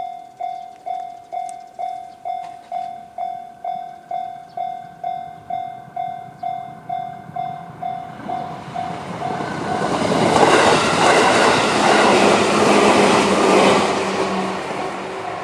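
JR-standard electronic level-crossing bell ringing steadily, about two and a half dings a second. About eight seconds in a JR 211-series electric train passes over the crossing; its running noise builds, drowns the bell for several seconds, then eases off as the bell comes through again.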